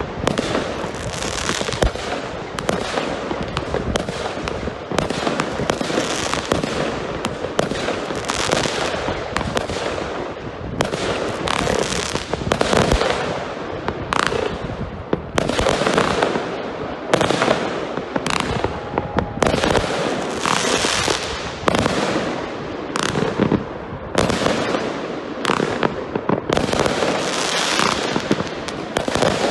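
Fireworks display: a rapid, continuous volley of salute shells bursting, with many sharp bangs overlapping and only brief lulls.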